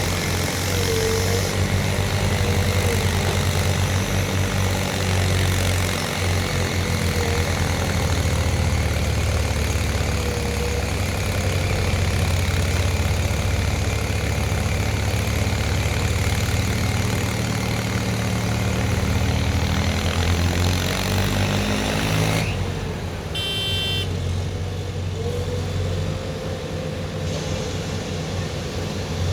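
Diesel engine of a JCB 3DX backhoe loader working under load, its pitch climbing as it revs up and then dropping off sharply about three-quarters of the way through. A brief high tone sounds just after the drop.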